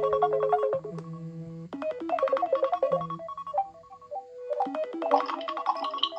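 Smartphone ringtone playing a short synthesized melody that repeats, with brief pauses between phrases; a brighter, higher-pitched set of notes comes in near the end.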